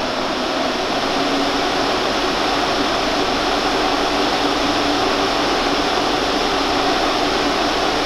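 Vents OV 2E 200 single-phase 200 mm axial exhaust fan running at full speed: a steady rush of air with a faint low hum in it.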